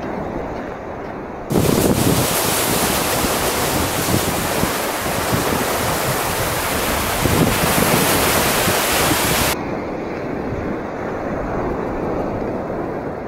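Sea surf washing onto a sandy beach, with wind on the microphone. About a second and a half in, the sound jumps abruptly to a louder, brighter hiss of surf. It drops back to a duller, muffled wash about two-thirds of the way through.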